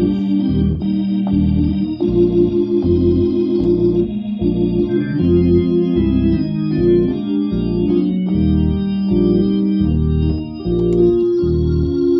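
Hammond tonewheel console organ played with both hands: sustained chords changing in a steady rhythm over a pulsing low bass.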